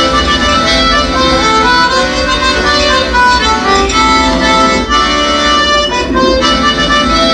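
Accordion playing a Breton dance tune, a melody of quickly changing notes.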